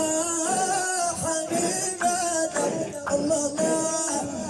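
Male singing of a Moroccan Sufi devotional chant (madih), in long held, slowly gliding melodic notes over a steady high shimmer.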